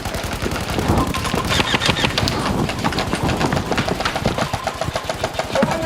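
Airsoft guns firing in rapid automatic bursts: fast, crackling strings of shots, overlapping and continuous.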